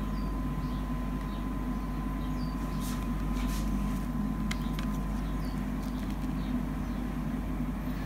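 Steady low background hum, with a few faint clicks as a plastic CD jewel case is handled and turned over.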